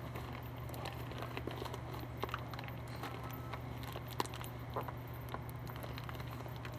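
Hands picking and pulling at a Play-Doh Slime package, making scattered small clicks, crackles and rustles as it resists opening, over a steady low hum.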